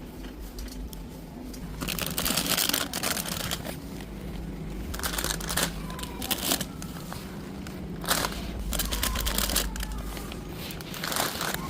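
Rustling and crinkling of plastic grocery packaging being handled, in several separate bursts, over a steady low hum.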